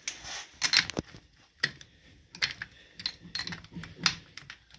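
Spark plug socket wrench clicking and tapping against the engine as it is fitted and worked to loosen a spark plug: a string of sharp, irregularly spaced metallic clicks.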